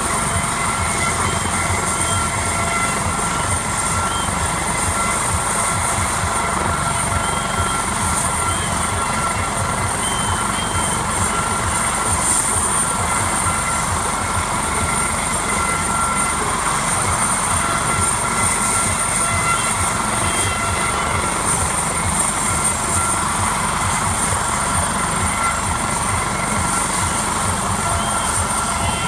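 Medical helicopter idling on the ground with its main rotor turning: a steady high turbine whine over the rapid beat of the rotor blades, unchanging throughout.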